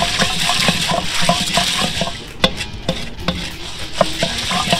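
Wooden paddle stirring popcorn kernels in oil in a stainless steel kettle. The kernels scrape and rattle against the metal in quick strokes, about four a second, over a steady hiss.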